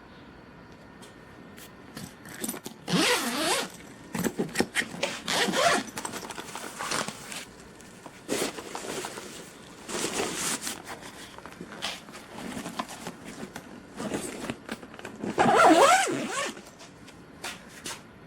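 Tent zipper being pulled open and closed in a series of quick strokes, with the longest and loudest stroke near the end.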